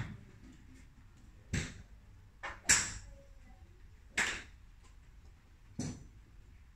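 Golf clubs striking balls on a driving range: six sharp cracks at irregular intervals, the loudest a little under three seconds in.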